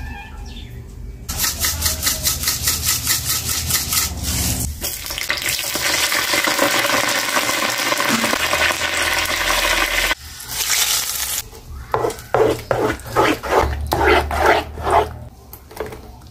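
Hot oil sizzling hard in a small tempering pan as chillies fry for a tadka, with spells of rhythmic stirring strokes before and after the main sizzle.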